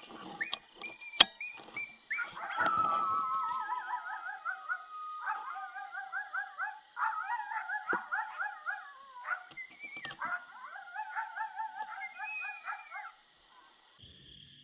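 A group of coyotes howling and yipping: one long falling howl, then several voices in a quick, wavering yip chorus that stops abruptly near the end. A sharp click, the loudest sound, comes about a second in.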